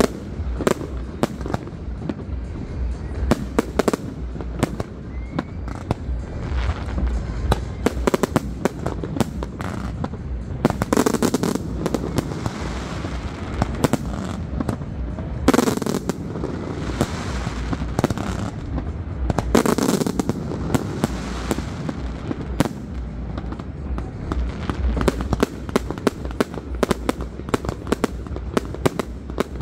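A fireworks display going off in rapid succession: a dense run of sharp cracks and pops, with longer, fuller bursts every few seconds in the middle, over a steady low rumble.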